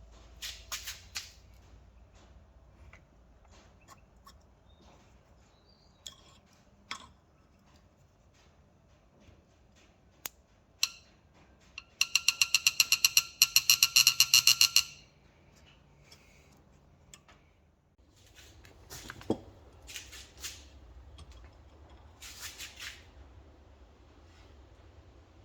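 Metal hand-tool work: scattered clicks and knocks, with about three seconds of rapid, evenly spaced squeaky clicking near the middle, while the Model T carburetor is set up in a vise to extract a broken fitting.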